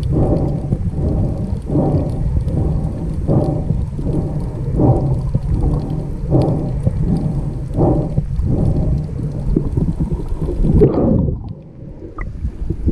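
Muffled underwater rumble of water moving around a diver's camera, with a swishing pulse about every second and a half. About eleven seconds in, the rumble drops off sharply and goes quieter.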